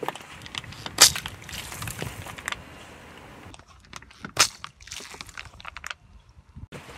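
Car tyre rolling over a clear plastic food tray on gravel, the plastic cracking and popping as it is crushed, over the crunch of tyre on gravel. The loudest sharp crack comes about a second in, another just after four seconds.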